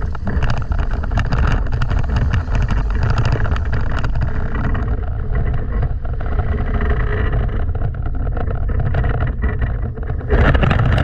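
Wind buffeting a microphone mounted on a hang glider during a towed takeoff run, mixed with the rumble and rattle of the glider's base-tube wheels rolling and bumping over grass. The noise jumps louder about ten seconds in, as the glider comes down onto its wheels.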